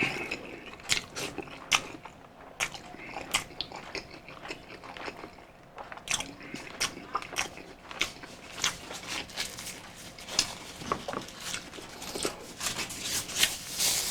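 Close-up mukbang eating sounds: a person chewing a mouthful of balbacua beef stew, with many short, irregular mouth clicks and smacks throughout.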